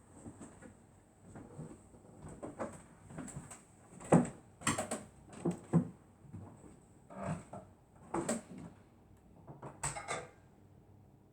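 A sleeping dog snoring in uneven bursts of breath, loudest and most frequent about four to six seconds in.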